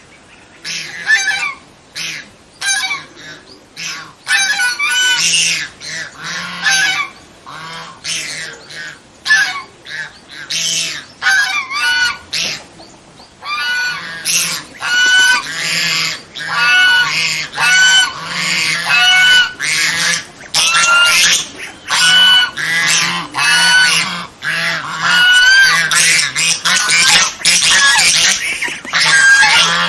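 Domestic swan goose honking: a long run of short, loud honks, spaced out at first and coming thick and fast from about halfway through.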